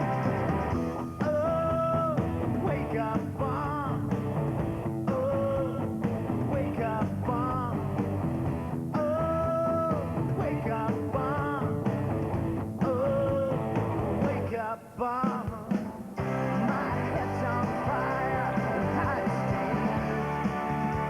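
Background rock song with a singing voice holding long, wavering notes over a full band, with a brief drop in level about 15 seconds in.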